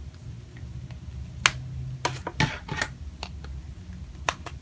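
Sharp clicks and snaps of a Verus Iron Shield phone case being fitted: its aluminum bumper band knocked and pressed over the inner case on a Galaxy S5. About seven separate clicks, irregular, from about a second and a half in to near the end.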